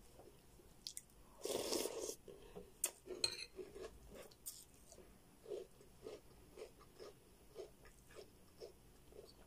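A person chewing a mouthful of cereal from a bowl of milk, close to the microphone. There is a loud crunch about one and a half seconds in, then steady chewing about twice a second.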